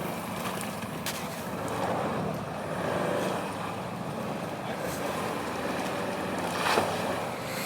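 Off-road vehicle engine running, its level swelling and easing. A few sharp knocks come through, the loudest about seven seconds in.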